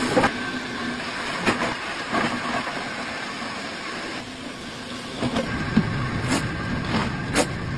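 Belt-driven plastic crusher (granulator) running steadily, with irregular sharp clacks as hard plastic pieces are chopped into flakes.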